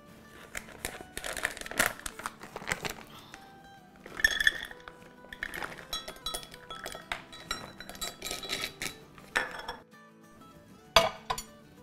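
Hard chocolate melting wafers clattering as they are poured into a stainless steel measuring cup, with clinks of metal and glass kitchenware and a couple of sharper knocks near the end. Background music plays throughout.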